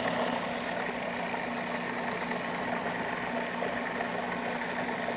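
Food processor motor running steadily, its blade churning an herb-and-olive-oil chimichurri sauce into an emulsion.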